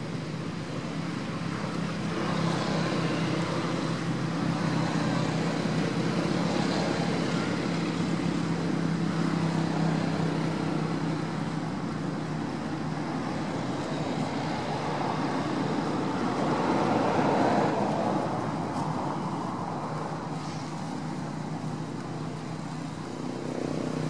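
Steady hum of motor vehicle traffic, swelling and fading several times as vehicles go by.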